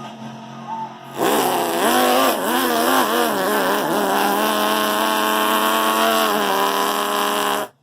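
A man imitating a revving car engine with his voice. The engine sound starts loud about a second in and wavers up and down in pitch, then settles into a steadier drone and cuts off suddenly near the end.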